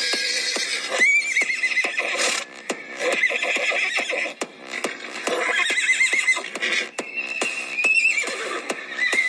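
Horse neighs, several wavering whinnies, mixed over theme music with a steady beat.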